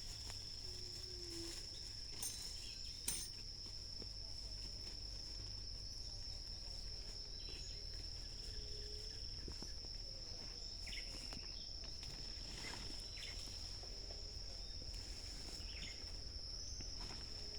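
A cricket trilling steadily on one high note, with two sharp clicks about two and three seconds in.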